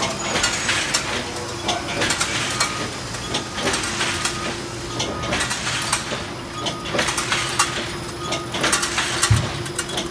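1978 Bobst SP 1260 E flatbed platen die cutter running in production: a rhythmic metallic clatter repeating roughly every half to one second over a steady hum, with one heavier thump near the end.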